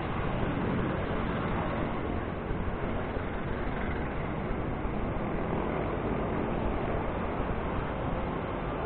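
Steady road traffic noise, with jeepney engines running close ahead, heard from a bicycle riding in the traffic lane.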